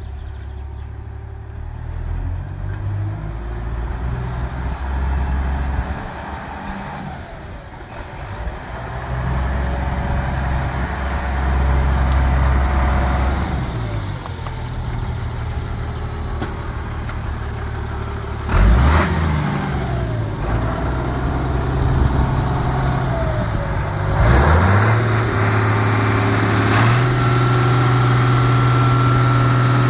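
Case International 1056XL tractor's six-cylinder diesel engine idling and being revved up and let back down several times, held at high revs near the end. A thin high whistle rises over the engine note while the revs are up.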